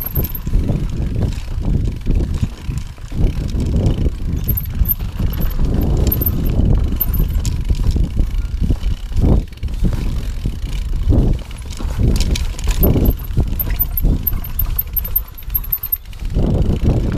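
Mountain bike riding down a rocky trail: a steady low rumble with frequent knocks and rattles as the tyres hit stones.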